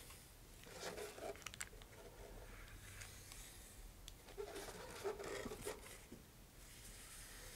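Faint handling noise from gloved hands working on a fibreglass rocket body: soft rustling and scraping in two short bouts, about a second in and again about four to six seconds in, with a few light clicks.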